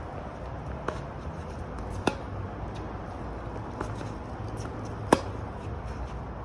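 Tennis ball struck by a racket in a rally: a few sharp pops, the loudest about five seconds in, over a low steady rumble.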